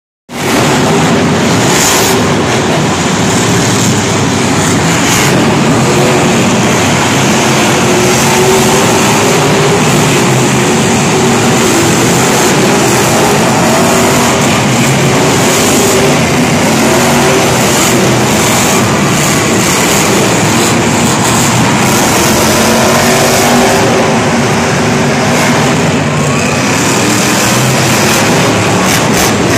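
Several Monster Jam monster trucks' supercharged V8 engines running and revving together, loud and continuous, with a few rising revs.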